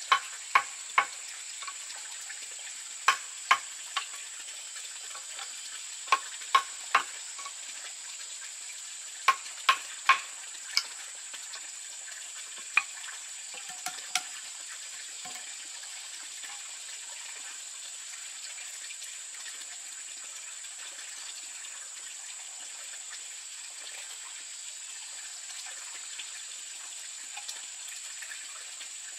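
Wooden mallet driving a chisel into a bamboo pole to cut a mortise: sharp knocks in groups of two to four blows for the first dozen seconds, then the blows stop. A steady high hiss runs underneath.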